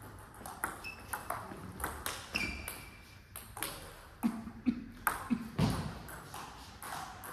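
Table tennis ball clicking off rubber-faced paddles and bouncing on the table in a serve and short rally, with more ball clicks from other tables in play in the hall.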